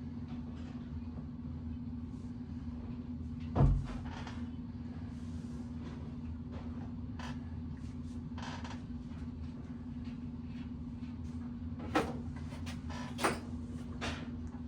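Scattered clicks and knocks of tools and bicycle hub parts being handled, with one heavier thump a few seconds in and a few sharper knocks near the end, over a steady low hum.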